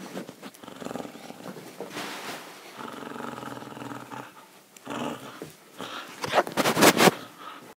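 Kerry Blue Terrier growling in play while tugging on a toy, with a long steady growl about three seconds in. Near the end comes a louder cluster of sharp noises, the loudest part.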